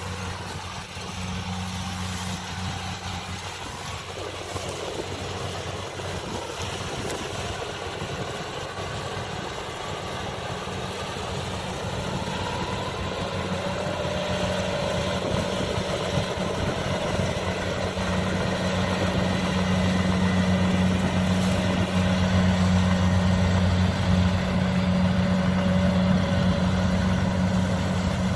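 Kubota DC-70 combine harvester's diesel engine running steadily while harvesting rice, growing gradually louder as the machine comes closer. A faint whine joins from about halfway.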